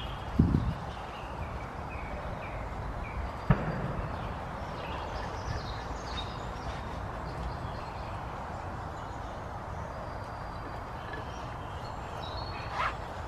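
Steady outdoor background noise with small birds chirping, and two dull knocks, about half a second and three and a half seconds in.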